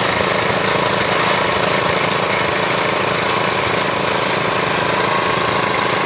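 Engine-driven bore-well drilling machine running steadily and loudly: a dense, fast chatter with a steady whine on top.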